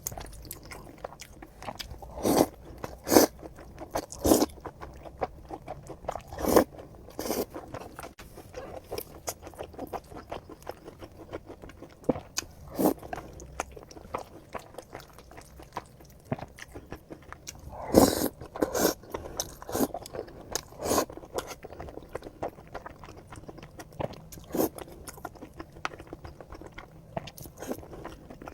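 Close-up eating sounds: bites and chewing with crunching, in irregular strokes, loudest a couple of seconds in and again about two-thirds of the way through.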